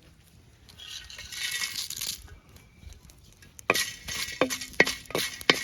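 Whole spices being dry-roasted in a clay pot: a soft rustling hiss about a second in, then a ladle stirring and knocking against the clay pot in a run of sharp clinks, several a second, from the middle onward.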